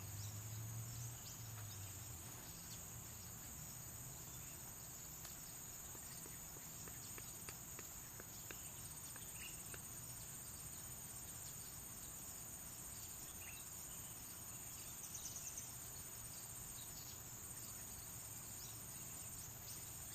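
Steady high-pitched chorus of insects, crickets among them, with a few faint scattered clicks.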